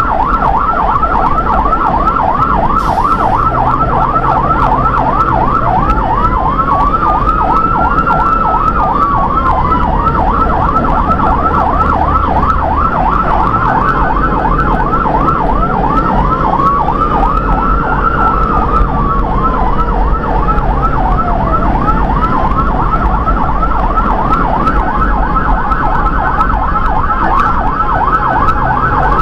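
Electronic emergency siren on a fast yelp, warbling up and down several times a second without a break. A slower wailing siren tone rises and falls twice, over steady vehicle and road noise.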